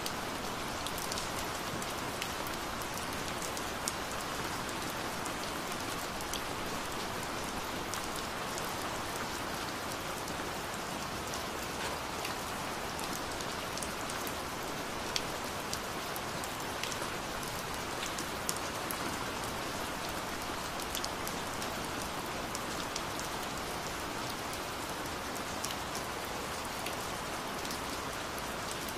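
Rain falling steadily: a dense, even hiss of drops with scattered sharper drop ticks.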